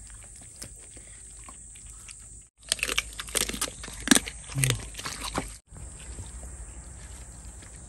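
A pet chewing and crunching raw chicken, with wet clicks and sharp crunches; the loudest crunches come in the middle few seconds, between two abrupt cuts.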